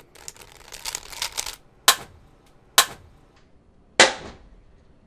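Crinkling and rustling as packaging is handled, then three sharp knocks, the last one ringing on briefly.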